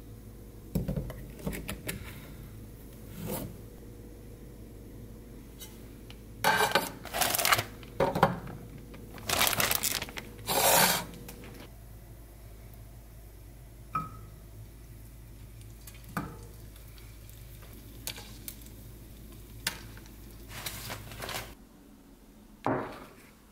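A nonstick frying pan on a gas stove, with pan and utensil clatter and frying: several loud bursts about a second long a third of the way in, and scattered clicks and knocks. A low steady hum runs underneath and stops near the end.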